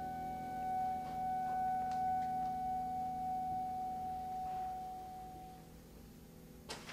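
A clarinet holds one long, high, pure note that fades away to nothing about five and a half seconds in. A single sharp click comes near the end.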